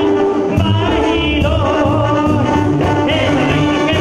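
Live Mexican banda music: a brass band playing with a singing voice over a pulsing bass.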